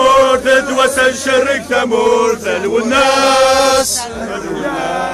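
Crowd of marchers chanting a slogan together in rhythmic syllables, ending on a long held syllable before the chant drops away near the end.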